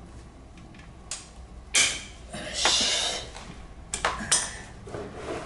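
Socket wrench with a six-point socket working the aluminium oil strainer cap on a KYMCO AK550 scooter's engine: a few sharp metallic knocks and clicks, the loudest about two seconds in, with a brief rushing hiss around three seconds in.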